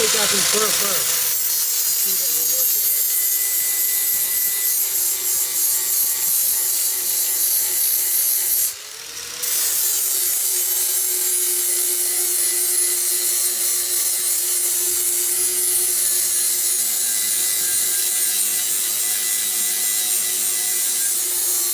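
Power grinder grinding the steel edge of a lawn mower blade to sharpen it, a steady, loud grinding hiss with a faint motor whine under it. The grinding lets up briefly about nine seconds in, then carries on.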